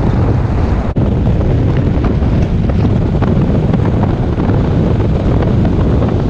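Loud, steady wind noise on the microphone of a camera aboard a moving boat, mixed with the rush of the boat running over the water. A brief dropout about a second in.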